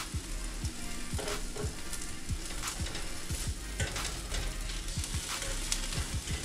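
Turkey bacon sizzling in a frying pan, a steady hiss broken by frequent sharp crackles and pops of spattering fat.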